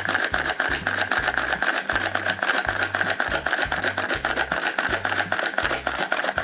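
Toy blender's small motor running steadily, with a fast, even plastic rattle as it mixes the strawberry food.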